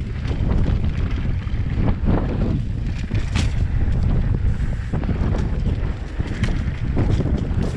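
Wind rushing over the microphone of an action camera on a moving mountain bike, with the low rumble of tyres on a dirt trail and frequent short knocks and rattles as the bike rolls over bumps.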